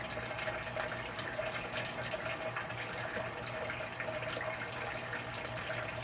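Steady rushing noise like running water, over a low steady hum.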